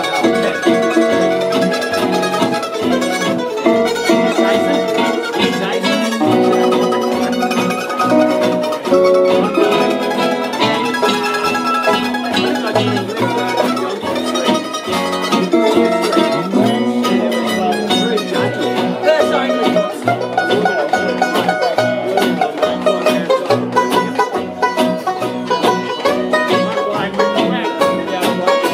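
Live acoustic string band playing a bluegrass-style tune: banjo, mandolin and ukulele picking together.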